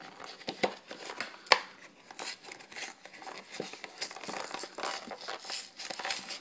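Packaging on a trading card box being crinkled and torn open by hand: an irregular crackle with sharp snaps, the loudest about half a second and a second and a half in.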